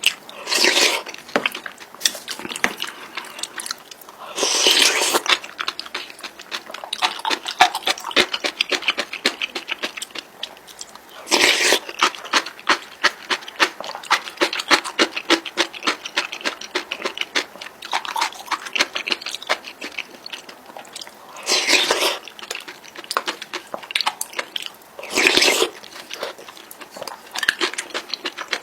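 Close-miked eating of Samyang spicy instant noodles: steady wet chewing and mouth clicks, with about five louder slurps spread through.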